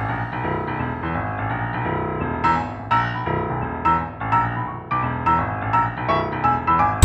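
Background music led by piano or electric keyboard, with a run of distinct plucked-sounding notes in the second half.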